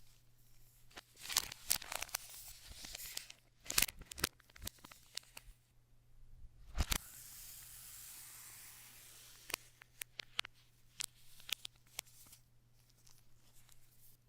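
Packaging being torn open and handled: tearing and rustling with scattered clicks and taps, and a steady hiss lasting a few seconds after a knock about seven seconds in.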